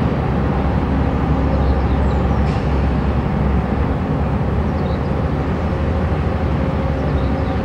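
Steady low rumble and drone of a loaded inland tanker barge's diesel engine as it passes, with a few faint high chirps over it.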